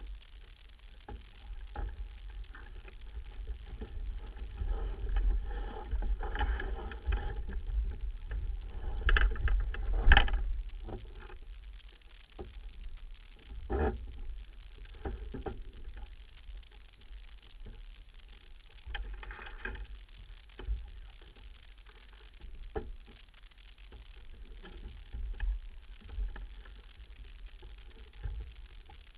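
Wind rumbling on the microphone and water along a sailing keelboat's hull, with scattered knocks and rattles of rigging and deck gear. A busier stretch of clatter comes about five to ten seconds in, as the boat tacks, with the loudest knock near ten seconds.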